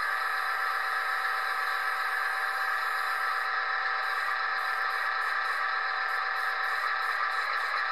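The small electric motor and gearing of a radio-controlled Volvo A40D model dump truck's tipping mechanism whining steadily as the dump bed tilts up to tip out its load of soil.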